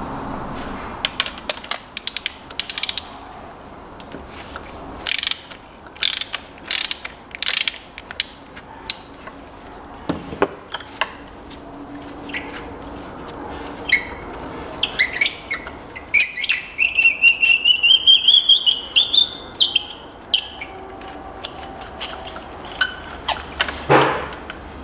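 Ratchet wrench with a magnetic spark plug socket unscrewing the spark plugs of a Kia Ceed 1.4 GDI petrol engine. Scattered clicks of the pawl come first, then a fast run of ringing ratchet clicks in the middle and a single louder knock near the end.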